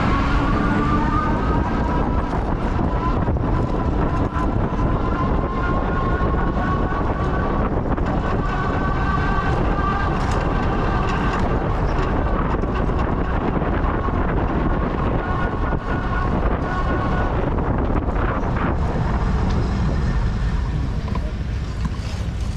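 Wind rumbling heavily on the microphone while riding an e-bike, with a high whine that drifts slowly in pitch, breaks off partway through, returns briefly and then fades out.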